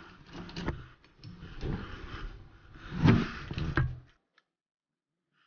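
Rustling and a few soft knocks of objects being handled, which cut off to silence about four seconds in.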